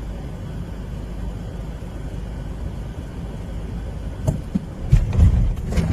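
A motor vehicle running with a steady low rumble. About four seconds in come a few sharp knocks, then louder, uneven rumbling rushes.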